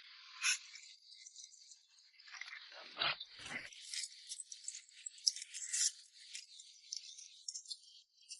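Quick clicking, clinking and scraping, typical of chopsticks working noodles in a bowl, with two low thumps about three seconds in.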